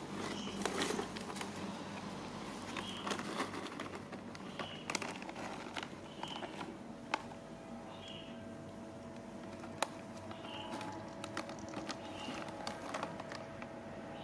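Crinkling and crackling of a plastic snack packet as a baby macaque grabs at it, with scattered sharp clicks. A short high chirp repeats every second or two.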